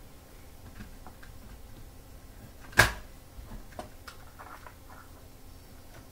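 Small plastic clicks of LEGO pieces being handled, with one sharp knock about three seconds in, followed by a few lighter clicks.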